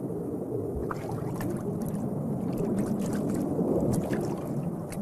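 Muffled underwater rushing and gurgling of water stirred by a swimming otter, with faint scattered ticks from about a second in.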